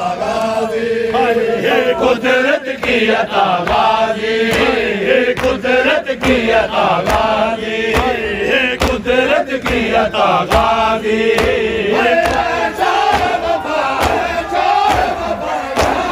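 A crowd of men chanting a noha, a Shia mourning lament, together in a steady rhythm, with regular sharp slaps of hands beating on chests (matam) keeping time.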